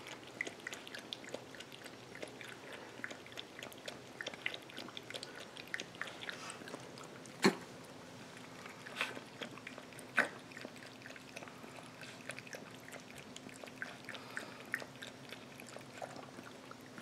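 Maltese puppy lapping water from a stainless-steel bowl: a rapid run of small wet clicks, with a few louder ticks about halfway through.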